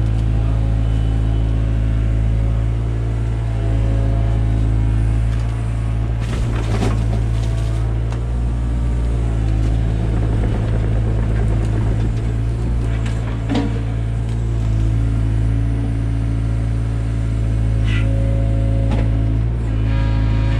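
Takeuchi TB175 excavator's diesel engine running steadily under work, with a few brief knocks and scrapes a third, two thirds and near the end of the way through.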